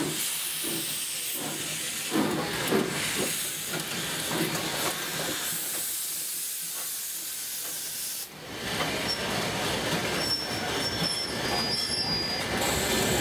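Flagg Coal #75 saddle-tank steam locomotive moving off slowly, with steam hissing from its cylinders and slow exhaust chuffs. About eight seconds in the sound changes abruptly to the steady rolling and rattle of the open excursion cars going by on the rails.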